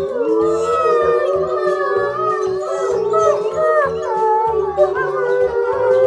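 Several wolves howling together, long gliding howls at different pitches overlapping in a chorus, over light background music.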